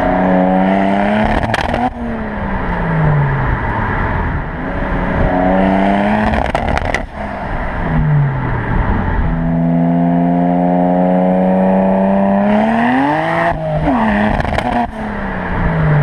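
BMW 335i turbocharged inline-six revving hard three times, its pitch climbing and then dropping, with sharp cracks and pops as each pull ends. This is a misfire and backfire that the owner traced to worn ignition coils and spark plugs.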